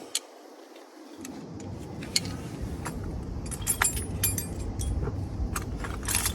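Metal hand tools clinking together, with scattered sharp clicks and a few ringing metallic clinks. A low rumble rises underneath about a second in.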